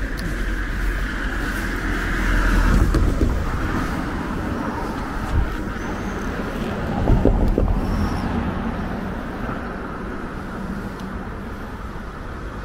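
Road traffic going by, a steady rush of cars that swells as vehicles pass about two seconds in and again about seven seconds in. Two brief high chirps come through near the middle.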